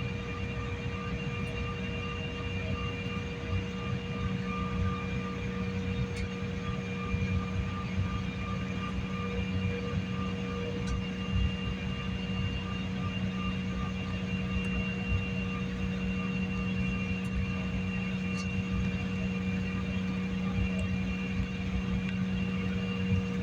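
Passenger airliner in flight, its engines giving a steady drone with several constant hums, heard from inside the cabin.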